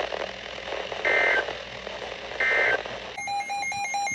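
Weather radio end-of-message signal: two short, loud, warbling bursts of SAME digital data tones about a second and a half apart, marking the end of the flood warning. From about three seconds in, an electronic alarm beeps rapidly as the next warning, a tornado warning, comes in.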